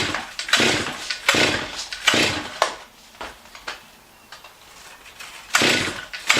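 Stihl MS 661C two-stroke chainsaw being cold-started on choke: four quick pulls of the recoil starter, a pause, then the engine catches and runs near the end.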